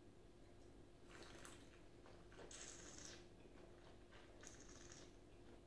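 Near silence, with the faint mouth and breath sounds of a wine taster holding a sip of red wine: three short, soft rushes of air, about a second and a half apart.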